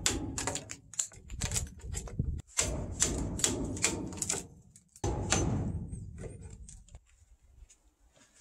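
Chisel struck again and again, chopping out a mortise in a wooden post, about two sharp blows a second. The blows stop about seven seconds in.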